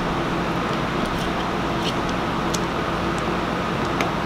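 Steady mechanical drone with a low hum that holds even throughout, and a few faint light clicks from wire and wire strippers being handled.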